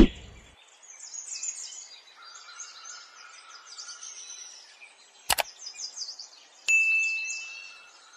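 High, busy chirping like birdsong, with a sharp click about five seconds in and a single chime-like strike near the end that rings on and fades over about a second.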